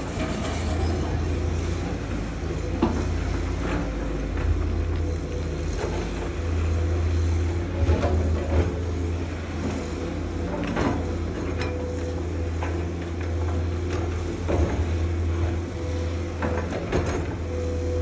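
Diesel engine of earthmoving machinery running steadily, with irregular metallic clanks and knocks over it.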